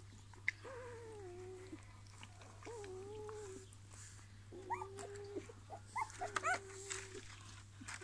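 Blind newborn puppies whining: about four drawn-out whines, each around a second long and dropping slightly in pitch, with short rising squeaks and a few clicks between them.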